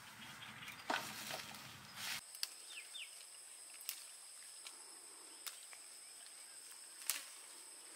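Rustling of footsteps through grass and brush for about two seconds, then a steady high insect drone with a few sharp snaps as young leaves are plucked by hand from a tree branch.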